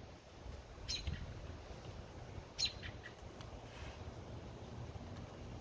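Chickens sneezing twice, about a second in and again near the middle, each a short sharp high-pitched sneeze, the second the louder, over a low steady rumble. The sneezing comes from dust off their crumble feed.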